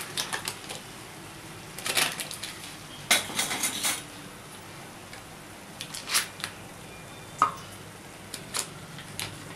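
Scattered clinks, taps and knocks of kitchen handling: a flat tawa griddle set on the cooktop, then a knife and a block of butter handled over it. A cluster of quick clicks comes about three seconds in, and one sharp knock a little after seven seconds.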